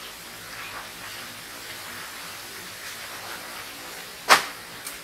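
Hands mixing and scooping rice on steel plates, faint, over a steady hiss, with one sharp clink of metal about four seconds in and a lighter one just after.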